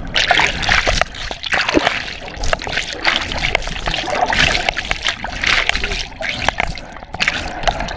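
Water splashing and sloshing, loud and irregular.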